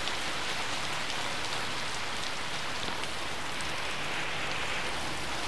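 Heavy rain pouring steadily onto a wet road and roadside vegetation, a continuous even hiss.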